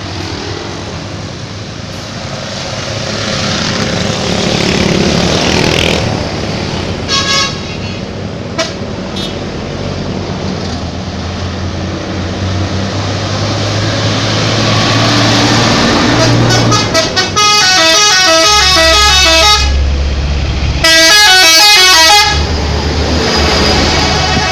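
Indonesian bus 'telolet' musical horns: a couple of short toots, then two long loud bursts of a multi-note horn tune, the notes switching rapidly up and down. A bus engine rumbles underneath with street noise.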